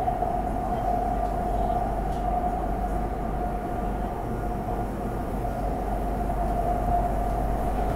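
Interior of a Bangkok Green Line Skytrain car under way: a steady rumble from the train with a constant high whine over it.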